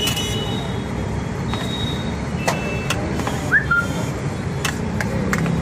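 Steady rumble of passing road traffic, with several sharp metallic clinks of a steel spoon and cup against a large steel mixing bowl of chickpeas, each ringing briefly. A short chirp sounds about halfway through.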